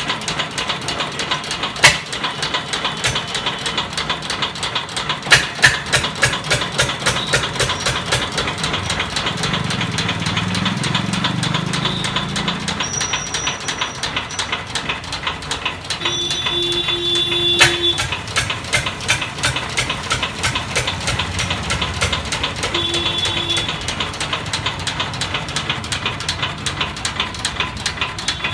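Field Marshal 8 HP single-cylinder diesel engine running after repair, firing with a fast, even knocking beat. A few louder sharp clacks stand out, the loudest about two seconds in.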